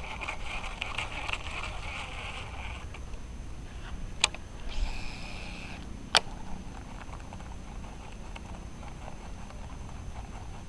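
Daiwa Tatula CT Type R baitcasting reel, fitted with Yokai bearings, being worked: a crackly whirring buzz for the first two seconds, then two sharp clicks about two seconds apart, with a short burst of whirring between them.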